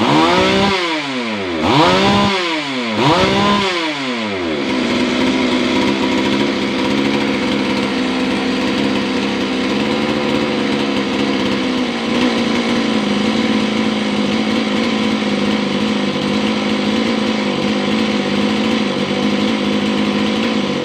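Stihl MS 381 two-stroke chainsaw revved in three quick throttle blips, each rising and falling in pitch, then settling to a steady idle about four seconds in.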